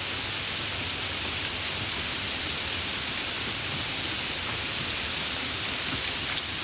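Gentle rain falling steadily, an even hiss with no distinct drops standing out.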